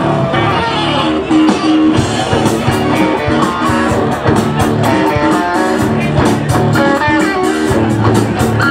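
Live rock band playing through a PA: electric guitar riff over bass and drums. The drummer's cymbal strikes come in strongly about two seconds in and keep an even beat.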